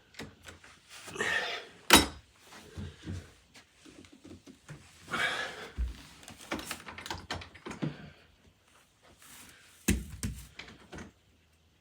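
Interior doorknob hardware being handled and taken apart on the door: scattered rattles and clicks with a few sharp knocks, the loudest about two seconds in and another near the end, and a dull thump midway.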